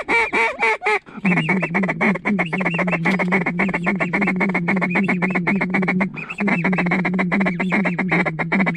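Hand-blown duck call: a few quacks, then a long, rapid feed chuckle that breaks off briefly about six seconds in and starts again, calling to a duck working the decoys.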